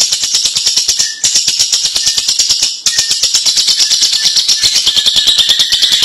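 Lovebird giving its long 'ngekek' chatter: a fast, even, high rattling of about ten notes a second, broken by two short pauses, about a second in and near three seconds.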